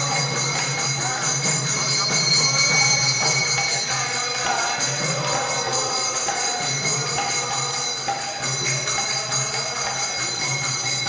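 Temple bells ringing steadily over music.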